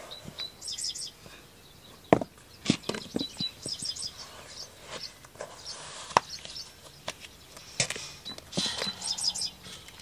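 Scattered knocks and thuds of boots being handled, pulled on and set down on concrete, the sharpest about two seconds in and again about six seconds in. Small birds chirp a few times.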